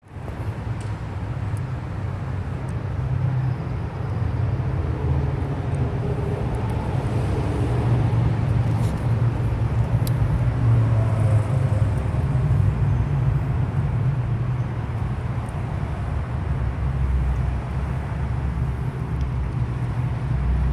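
Steady low rumble of road traffic in a city, with a few faint higher sounds drifting in and out.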